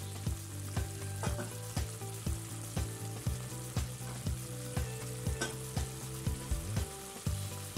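Onion-and-spice masala, loosened with water, sizzling and bubbling in an aluminium pan, a wooden spatula stirring it at first. Under it runs background music with a steady beat, about two beats a second.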